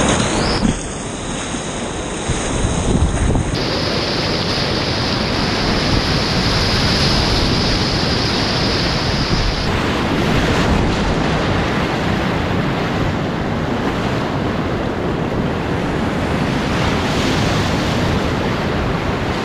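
Loud, steady rush of big whitewater rapids at high flow, about 8,000 cfs, crashing close around a kayak and heard through an action camera's microphone.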